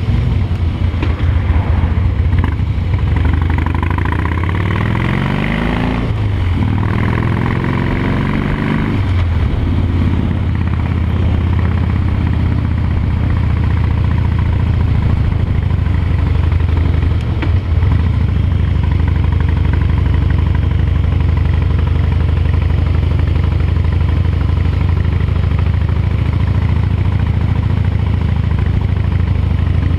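Harley-Davidson V-twin engine heard from on board, pulling up through the gears in the first several seconds, its pitch rising and dropping back at each shift, then running at a steady cruising pace.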